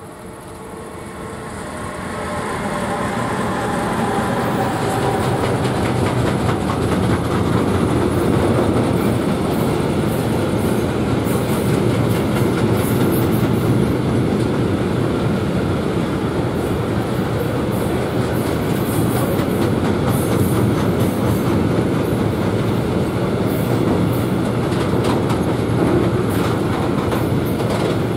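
Electric freight train passing close by: two electric locomotives coupled together pass first, with tones sliding slightly downward, then a long line of open freight wagons rumbles past. The sound grows loud over the first few seconds and stays steady, with wheels clicking over the rail joints.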